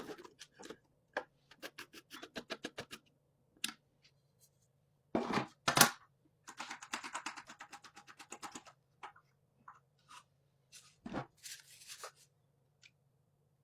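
Hands-on handling of small PC parts and packaging: a run of light clicks and taps, two louder knocks about five and six seconds in, then a scratchy rustle with rapid ticking, and more taps and a short scrape near the end.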